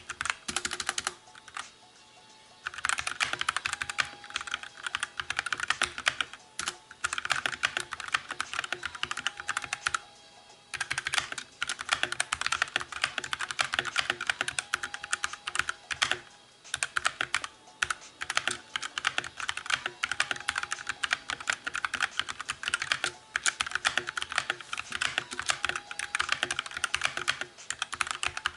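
Rapid typing on a Drevo Calibur mechanical keyboard with red linear switches: a dense clatter of keystrokes in long runs, broken by short pauses about two seconds in and about ten seconds in.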